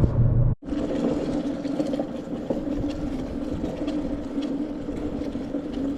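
A steady engine drone, holding one low pitch, begins after an abrupt cut about half a second in.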